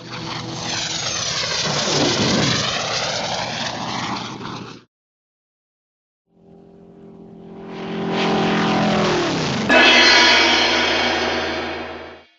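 Two separate engine passes with a short silent gap between them. The first swells and fades over about five seconds with a sweeping, phasing tone. The second builds up, its pitch sliding down, then changes abruptly about ten seconds in and runs steadily before cutting off.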